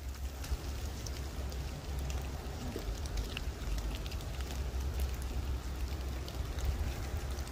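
Steady rain falling on wet leaf litter, with many small scattered drop ticks and a low rumble underneath.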